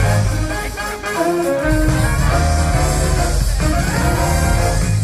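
Show music with brass and orchestra, played loud over the park's speakers; a heavy bass line comes in about a second and a half in.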